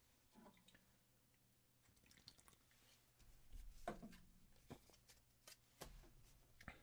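Near silence, with a few faint taps and soft rustles of hands handling trading cards on a desk mat, mostly in the second half.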